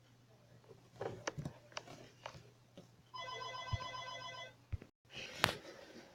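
Electronic telephone ring: a rapidly trilling, multi-tone ring lasting about a second and a half, midway through, with scattered light clicks and knocks before it and a sharp click after it.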